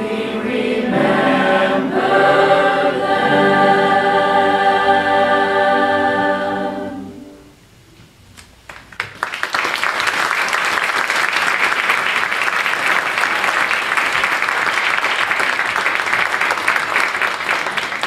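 Mixed-voice school choir holding a final chord, released about seven seconds in. After a brief pause the audience breaks into steady applause.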